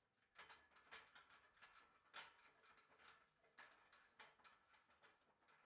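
Faint, irregular light clicks and rattles of metal bicycle parts being handled at the front fork and brake caliper, with the sharpest click about two seconds in.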